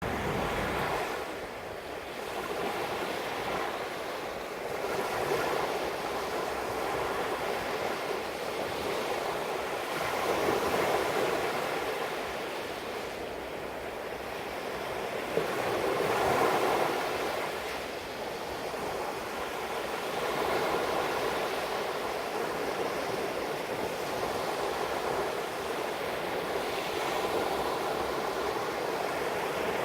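Sea waves washing in, the rush swelling and easing every five or six seconds.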